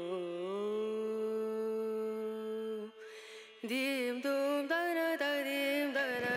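Background music: a single voice humming or singing a slow melodic line, holding one long note for about three seconds, then breaking off briefly before moving through ornamented, gliding notes.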